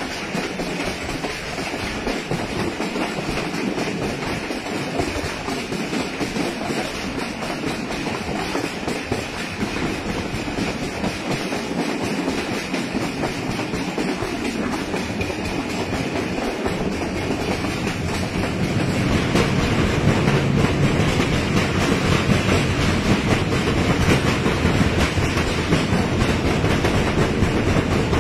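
Pakistan Railways Meher Express passenger train running along the track, heard from on board: steady wheel-on-rail running noise, growing louder and deeper about two-thirds of the way through.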